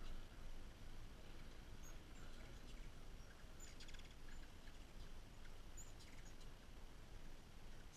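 Faint, short, high chips from hummingbirds, with a brief burst of rapid chittering about halfway through, over low steady background noise.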